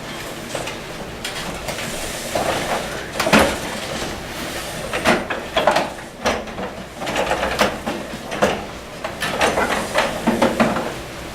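Chairs and props being moved about on a stage floor during a scene change: irregular scraping and knocking, with the sharpest knock about three and a half seconds in.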